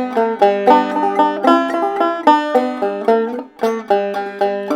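Clawhammer banjo playing an instrumental break: a quick run of plucked notes over a steady drone string, with a brief gap about three and a half seconds in.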